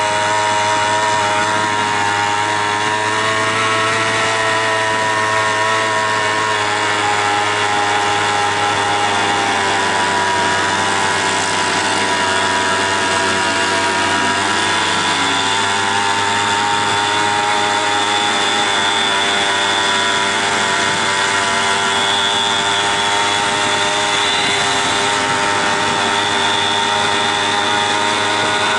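Moped engine running at a steady cruising speed, its pitch rising and falling only slightly.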